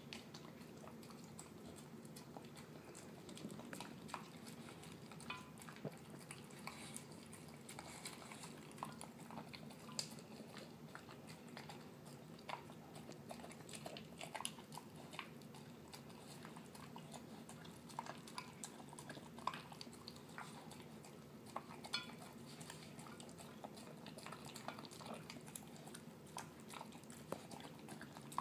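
A terrier mix dog eating canned wet food mixed with kibble from a glass dish: quiet, irregular mushy chewing and biting with scattered sharp clicks, over a steady low hum.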